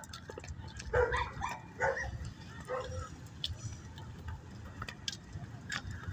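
A dog barking, three short barks in the first three seconds.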